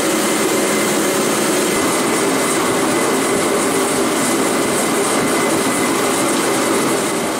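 Remington diesel-fired torpedo heater running steadily: the blower fan and the lit burner make an even rushing noise with a faint steady tone. It sounds healthy, the fan turning at full speed on a replacement capacitor after being stuck.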